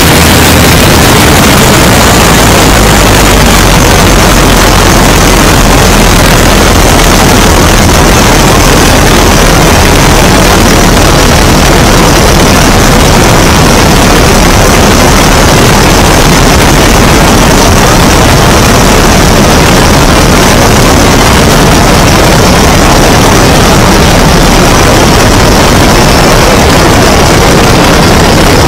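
Great Lakes biplane in flight: its engine and propeller run steadily under heavy wind noise on an exposed microphone. The sound is loud and unchanging throughout.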